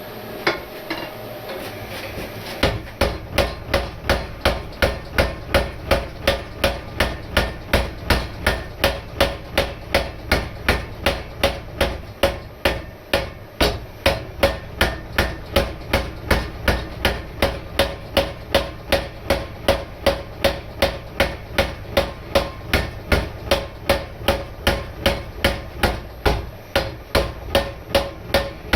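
Homebuilt 100 lb trip-style power hammer, belt-driven from a crankshaft, working a hot bar of 3/4-inch square steel. A motor hum builds, one blow lands about half a second in, and from about two and a half seconds the ram strikes in a steady rhythm of about two to three blows a second.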